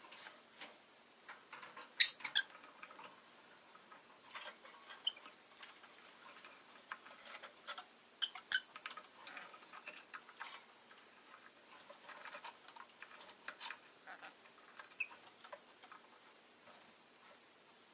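Rosy-faced lovebird giving short, sharp chirps among a scatter of small clicks and scratches. The loudest chirp comes about two seconds in.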